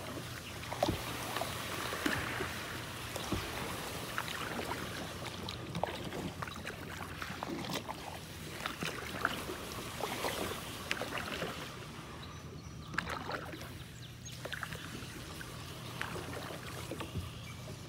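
Kayak paddling: paddle strokes splashing in the water, with many small irregular splashes and clicks. It grows a little quieter about two-thirds of the way through.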